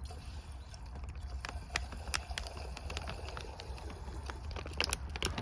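Scattered small clicks and knocks of camp cooking gear being handled, a kettle and its water, with a quicker run of taps near the end over a steady low rumble.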